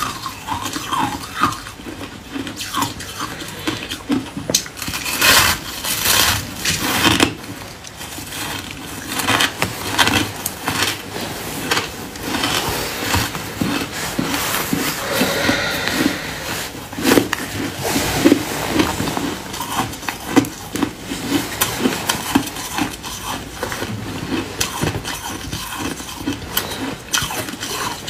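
Close-up biting and chewing of a block of compacted shaved ice, giving irregular crisp crunches throughout.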